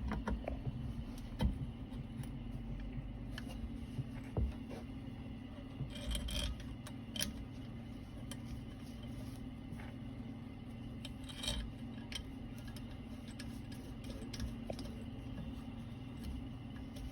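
Scattered light metal clinks, taps and rubbing as the pump's flange and its screws are handled and fitted by hand, with a faint steady hum underneath.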